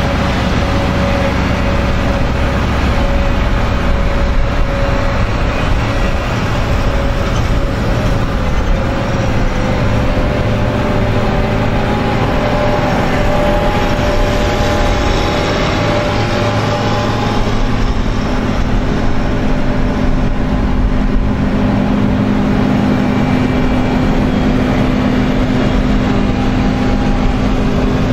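A convoy of New Holland combine harvesters driving past one after another at close range, their diesel engines running steadily. The engine tone changes as each machine goes by.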